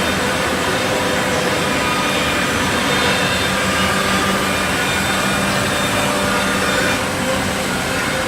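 Woodmaster CNC jigsaw for wood running steadily, a constant machine noise with a few steady hums and whines over it.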